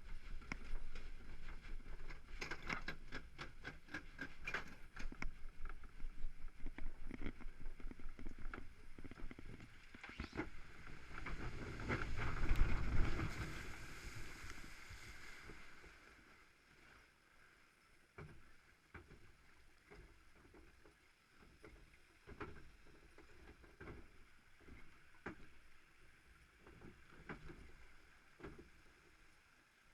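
Log flume ride boat in its trough: rapid, evenly spaced clicking early on, then a loud rushing surge of water that builds and peaks about halfway through as the boat runs down a chute, settling into quieter water with occasional knocks of the boat against the flume.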